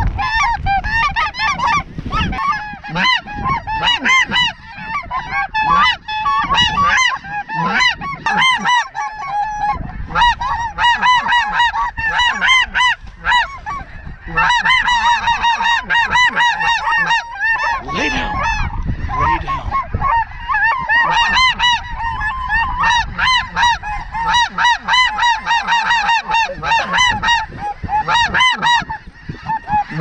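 Snow geese honking constantly, a dense chorus of many short, high calls overlapping.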